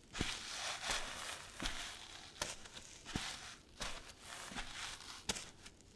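Bare feet walking on sand at a steady pace, about eight steps, each a soft crunch with a gritty hiss as the sand shifts underfoot.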